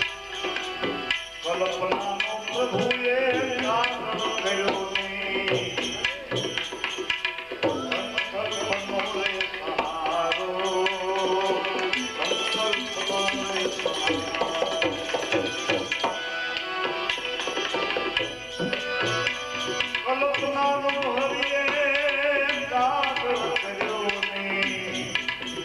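Bhajan music: tabla playing quick strokes under a wavering melody line, with steady held notes sounding beneath.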